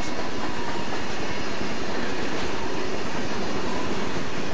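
Southern Pacific freight cars rolling past close by: a steady rumble and clatter of steel wheels on the rails.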